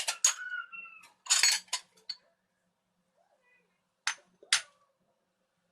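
Dishes and utensils clinking and knocking: a quick cluster of sharp knocks, one leaving a brief ringing tone, then two more knocks about four seconds in.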